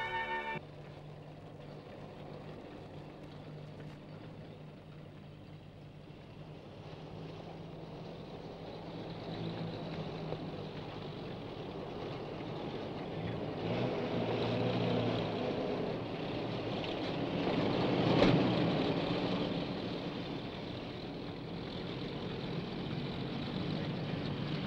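Armoured military vehicles approaching along a road, their engines running steadily and growing gradually louder, loudest about eighteen seconds in. A music cue cuts off just after the start.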